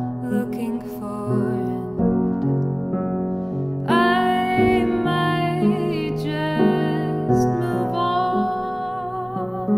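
Upright piano playing slow, held chords. About four seconds in, a woman's voice joins with long wordless sung notes with vibrato.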